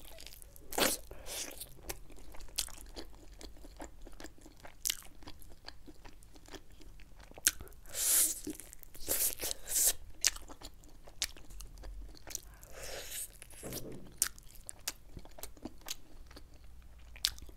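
Close-miked eating: biting into and chewing sauce-coated chicken, a string of crunches and sharp mouth clicks with a few louder bites.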